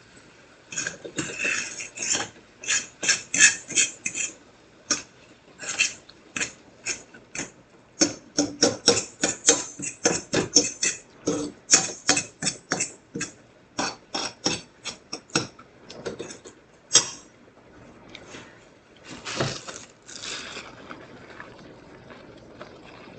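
A cooking utensil stirring spinach and cream in a frying pan: quick, irregular scrapes and taps against the pan, several a second, thinning out near the end.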